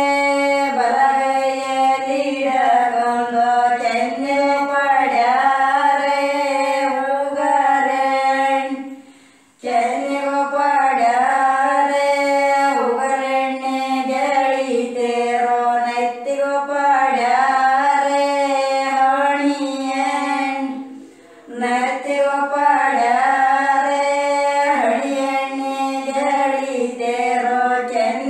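A woman singing a melody in long held notes, breaking off briefly about nine seconds in and again about twenty-one seconds in.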